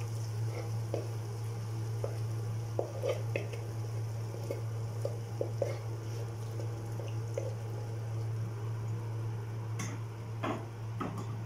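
Boiled prawns sliding from a bowl into thick masala in a non-stick pan, with soft wet squelches and a few light clicks over a steady low hum. A wooden spatula starts working the pan near the end.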